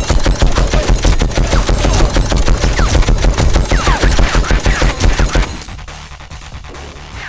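Film gunfire sound effects: a rapid, continuous stream of shots, like automatic fire. It drops off sharply about five and a half seconds in, leaving a much quieter low rumble.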